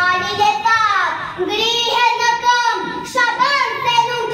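A young girl singing solo into a handheld microphone, holding long notes, with a falling slide about a second in.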